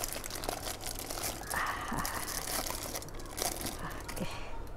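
Plastic food packaging being handled, crinkling and rustling with many small ticks, busiest about a second and a half to two and a half seconds in.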